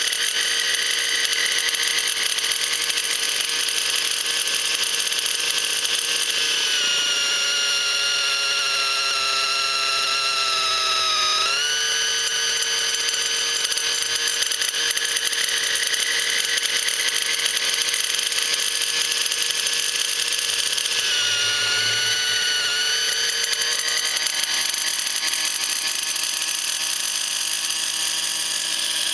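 O.S. 55 glow engine of a radio-controlled helicopter running steadily with a high whine while hovering, a sound its owner finds strange at idle. The pitch sags slowly for a few seconds and snaps back about a third of the way in, then dips briefly again past the middle.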